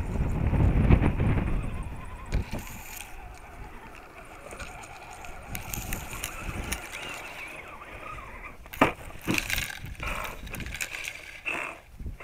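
Wind on the microphone, loudest in the first two seconds, and grass brushing against an RC scale crawler truck as it climbs a steep grassy bank. Several sharp knocks in the last few seconds as the truck tumbles and ends up on its roof.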